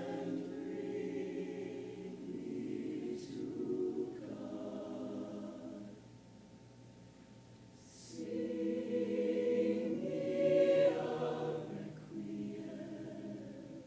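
Show choir singing slow, sustained chords in close harmony. The phrases go soft about halfway through, then swell louder again.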